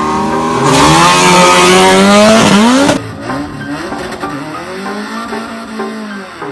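Car engine revving, with a loud tyre squeal from about a second in that cuts off about three seconds in, then the engine revs rising and falling several times.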